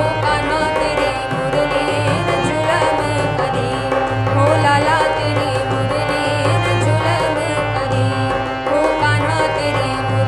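A woman singing a Hindi devotional bhajan over a harmonium's held chords, with a dholak beating a steady rhythm.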